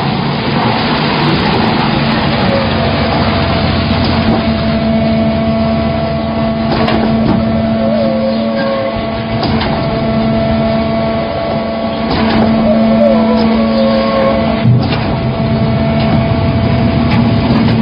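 Concrete mixer pump machine running steadily under power, with a sharp knock about every two and a half seconds.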